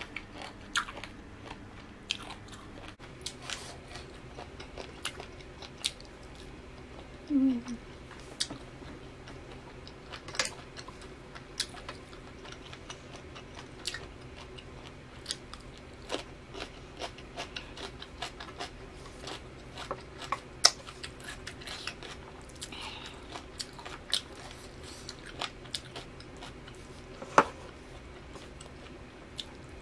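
A person chewing and biting food close to the microphone: wet mouth sounds with frequent sharp, irregular clicks and smacks, over a faint steady low hum.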